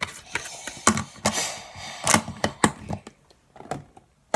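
Handling noise: a run of irregular clicks and knocks, with a short rustling scrape about a second and a half in.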